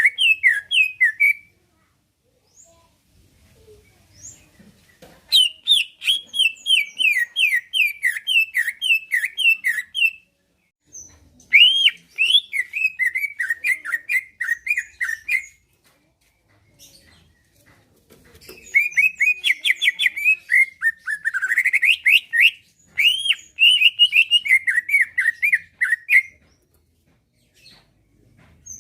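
Cucak ijo (greater green leafbird) singing loudly in bouts of fast, repeated down-slurred chirps: several phrases of a few seconds each, separated by short pauses.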